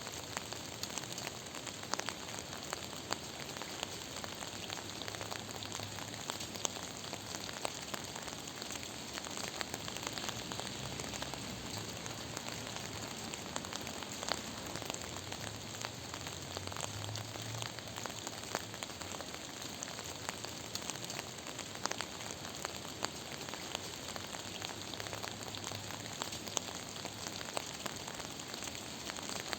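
Steady rain falling: an even hiss with many sharp drop ticks striking a surface.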